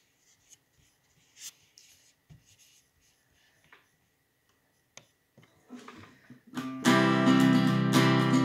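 A few faint clicks and knocks, then about seven seconds in a guitar starts playing chords, opening the song.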